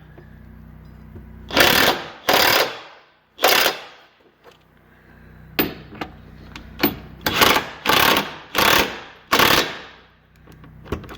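Hitch mounting bolts on a 2007 Toyota RAV4 being tightened with a wrench in about eight short, rattling bursts, the final check that the bolts are snug, over a steady low hum.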